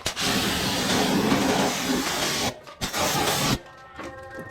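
High-pressure water spray from a jet cleaner washing an air conditioner unit: a loud steady hiss for about two and a half seconds, a brief break, then a shorter burst that cuts off suddenly.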